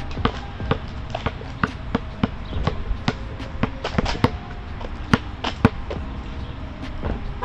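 Basketball being dribbled on a hard outdoor court, a quick bounce about every half second in a loose, uneven rhythm.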